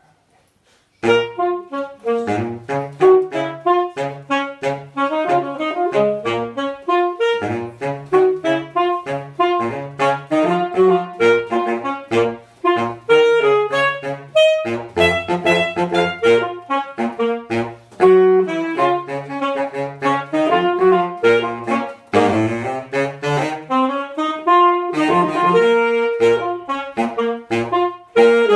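Saxophone duet: two saxophones playing, a lower part of short repeated notes under a higher melody line, starting about a second in.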